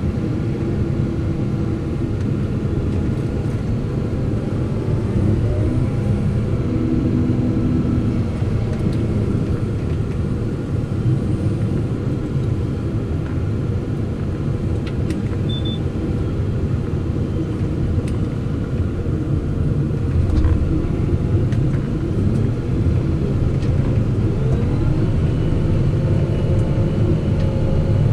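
Fendt 718 Vario tractor's six-cylinder diesel engine running steadily under load while pulling a plough, its pitch shifting briefly a few times.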